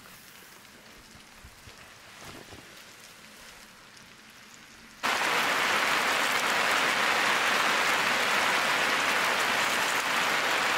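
Heavy rain falling steadily, a dense hiss that cuts in suddenly about halfway through. Before it there is only a low background with a few faint ticks.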